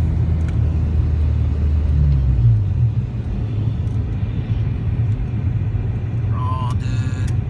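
Honda Civic engine running with road noise heard from inside the cabin; the engine note rises briefly about two seconds in, then settles to a lower, steady rumble.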